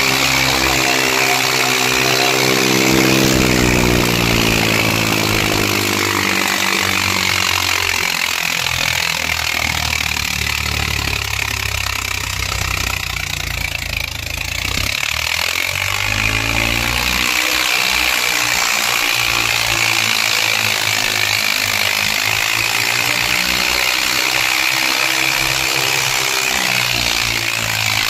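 Tractor's diesel engine running loud at high revs. Its pitch sags over the first several seconds, turns rough around the middle, then climbs again.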